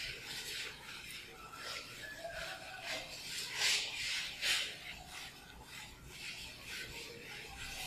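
Chalkboard duster wiping chalk off a blackboard in a series of back-and-forth rubbing strokes, the loudest about four seconds in.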